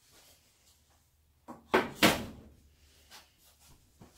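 A metal baking sheet set down on a glass-top electric stove: three sharp knocks close together about a second and a half in, followed by a few light taps.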